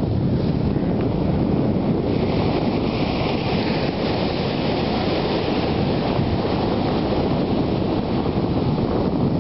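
Wind buffeting the microphone over the steady wash of breaking sea surf, with a louder hiss of a wave breaking and rushing up the sand from about two seconds in until about five seconds in.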